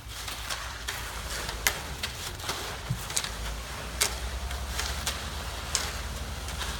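Shovels and rakes scraping and clinking as they spread wet concrete, with a few sharp strikes a second or two apart, over a steady low drone.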